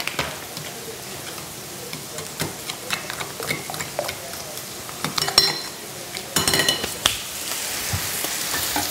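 Spoon stirring beaten eggs and shredded cheddar in a glass mixing bowl, scraping and clicking, with ringing clinks against the bowl about five and six and a half seconds in. Sausage sizzling in a frying pan underneath, louder over the last two seconds.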